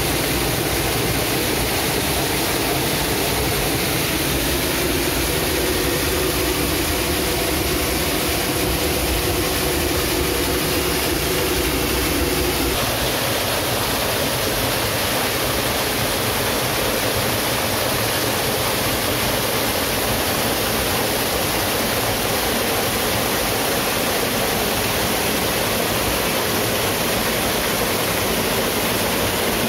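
Waterfall rushing as a steady, loud roar of falling water. About halfway through, the deeper part of the rush drops back and the sound turns thinner and hissier.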